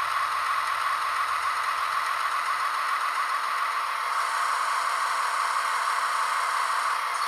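Märklin H0 V160 model locomotive with an ESU LokSound decoder running on test: a steady rattling noise from the open chassis.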